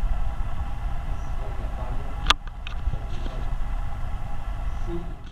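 Steady low rumble and hum of room background noise, with a single sharp click about two seconds in.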